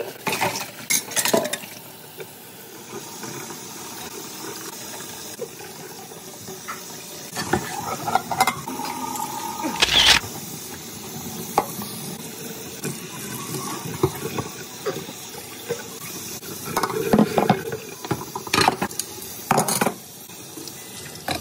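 Kitchen tap running steadily into a stainless steel sink while dishes are washed by hand, with plates, pot and cutlery clattering against each other several times.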